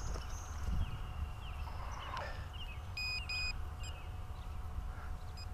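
Metal detector giving two short high-pitched beeps about three seconds in, over a low steady rumble.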